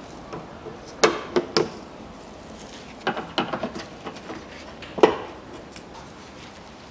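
Plastic trim clips on a car's front bumper panel being pried out with a screwdriver: sharp plastic clicks and snaps, three about a second in, a quick cluster around three seconds, and the loudest single snap about five seconds in.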